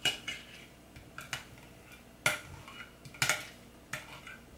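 Metal spoon clinking and scraping against a glass mixing bowl while scooping out thick custard: about five short, sharp clinks with a brief ring, the loudest about two and three seconds in.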